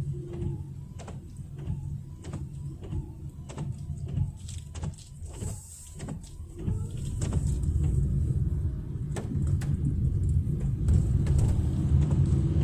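A Kintetsu limited express train passing over a level crossing: a low rumble with clattering clicks of the wheels, growing louder about halfway through and cutting off suddenly at the end.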